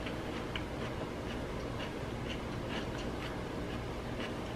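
A person chewing a bite of raw kohlrabi with the mouth closed: faint, irregular crisp crunches, a few per second.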